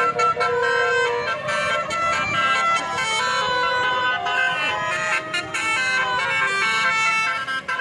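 Bus basuri telolet horn playing a tune: several horn tones sounding together and stepping from note to note, loud and continuous.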